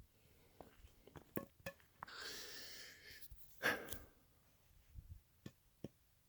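A person breathing close to the microphone: a soft breathy hiss about two seconds in, then a short, louder rush of breath, with a few faint clicks.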